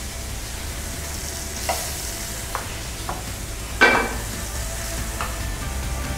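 Food sizzling in a frying pan on a gas range, with metal utensils clinking against the pans. One louder metallic clank rings out about four seconds in, over a steady low hum.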